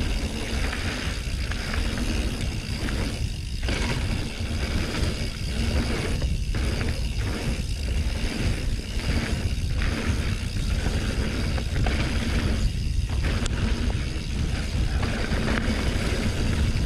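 Mountain bike rolling down a dirt singletrack: steady wind buffeting on the handlebar-mounted camera's microphone, mixed with tyre noise and the bike rattling over the ground.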